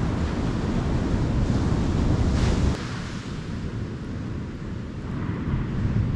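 Wind buffeting the microphone over ocean surf breaking on a beach. About three seconds in the sound drops abruptly to quieter surf with less wind.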